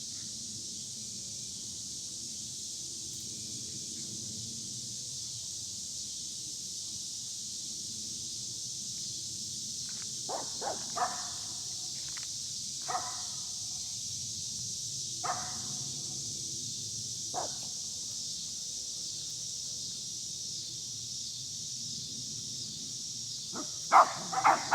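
Dog barking: a few single barks a couple of seconds apart, then a quick run of louder barks near the end, over a steady high hiss.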